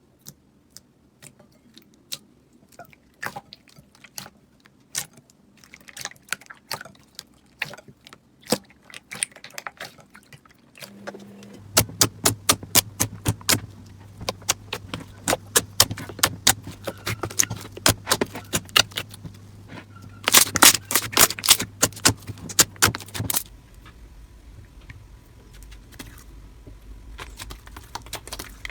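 Slime being squeezed and poked by hand, giving a run of crisp clicks and crackles, sparse at first and much denser and louder from about the middle, with a steady low hum under it.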